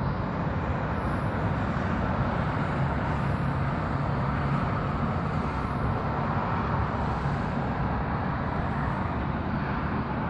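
Steady hum of distant city traffic, even throughout with no single loud event.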